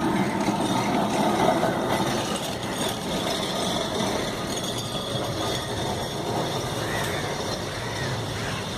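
Kolkata electric tram running along its track, a steady mechanical running noise.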